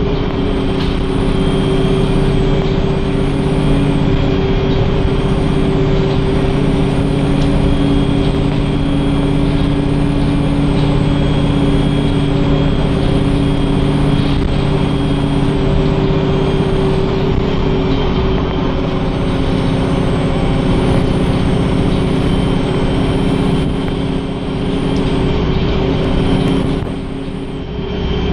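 Wright StreetLite DF single-deck bus heard from inside the rear saloon, its diesel engine running steadily under load at speed with a constant low drone and road noise. The sound dips briefly near the end.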